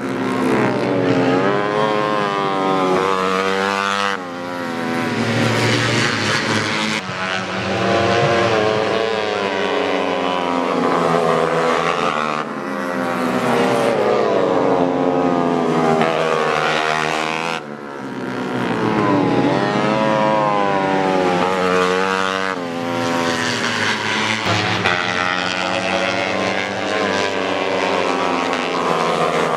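Racing 150cc four-stroke underbone motorcycles, several engines at once, their pitch rising and falling as they rev up and drop off, with abrupt breaks every few seconds.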